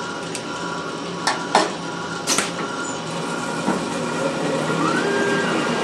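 A 1984 Litton Autolathe glass lathe running with a steady hum and hiss, with several sharp clicks and clinks as the tube is handled at the chuck. About five seconds in, a motor whine rises, holds and falls away as the programmed machine moves.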